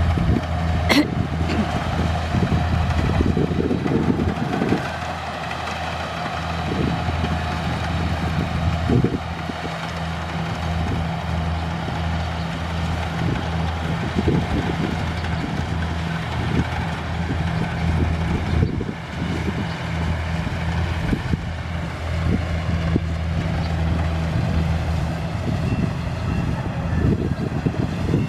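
Kubota rice combine harvester's diesel engine running steadily under load, a low, even hum with scattered knocks and a sharp click about a second in.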